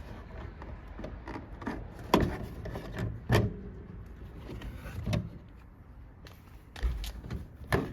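Several sharp knocks and clicks, irregularly spaced, from handling the plastic trunk-lid trim panel and hand tools on a car's trunk.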